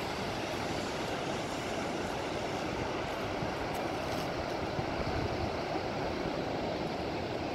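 Ocean surf breaking on a sandy beach: a steady, unbroken rush of noise with no single wave crash standing out.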